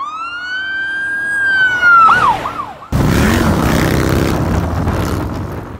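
An emergency-vehicle siren wails on one high held tone, then switches to rapid yelps. About three seconds in it cuts off suddenly to loud wind rush over a Harley-Davidson V-twin engine running at speed.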